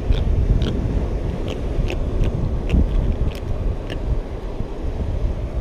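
Sea wind buffeting the microphone with a steady low rumble, and a string of short, sharp clicks, roughly two a second, running through it.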